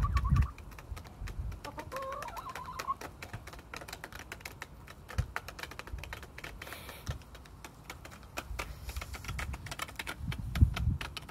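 Hens pecking quinoa from a plastic bowl on concrete: a rapid, irregular patter of beak clicks against the bowl. A short wavering hen call comes about two seconds in, and a low bump near the end.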